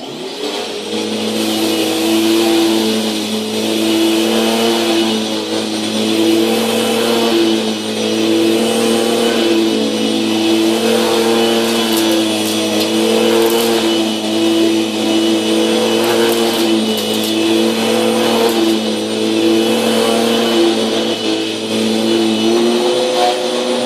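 Eureka 12-amp vacuum cleaner switched on suddenly and running steadily at a constant pitch while sucking up debris, with scattered faint ticks. Near the end it is switched off and its motor winds down with a falling pitch.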